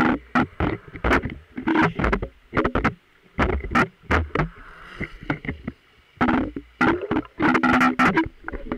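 Water sloshing and splashing around a handheld camera held at the waterline as a person wades through shallow water, in loud irregular surges several times a second with gaps between.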